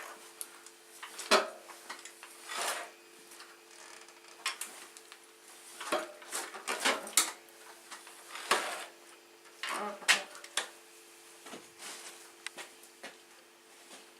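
Scattered clicks, knocks and light clattering at irregular intervals, strongest about a second in and again between about six and ten seconds in, over a steady low hum.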